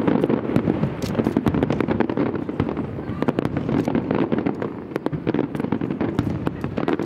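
Fireworks display: aerial shells bursting, with a dense run of rapid bangs and crackles over a continuous rumble.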